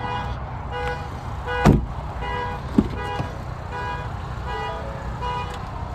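A 2021 Ford Bronco's cabin warning chime sounding over and over, about two chimes a second. There is a single thump a little under two seconds in and a click about a second later.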